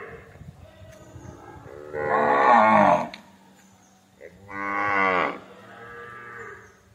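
Cattle mooing: two loud, drawn-out moos about a second long, the first about two seconds in and the second about four and a half seconds in, with fainter lowing before and after them.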